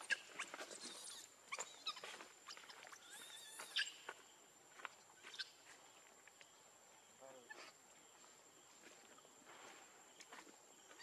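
Monkeys giving short, high-pitched squeaks and chirps, frequent in the first four seconds and then only now and then.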